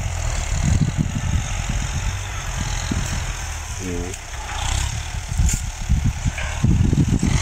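Farm tractor engine running steadily as it drags a plough through the field, a continuous low drone with some rumbling.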